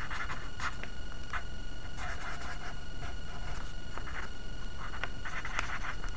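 Pencil scratching on paper in several short bouts of quick strokes as a diagram is sketched, the busiest bout near the end. Underneath is a steady low hum and a faint steady high tone.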